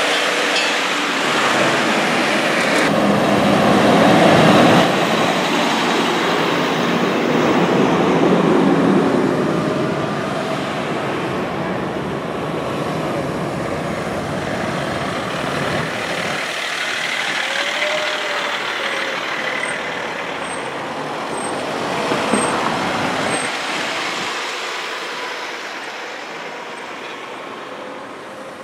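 A convoy of fire engines and other emergency vehicles driving past one after another: heavy truck engines and tyre noise swelling as each vehicle passes, loudest in the first ten seconds and fading near the end.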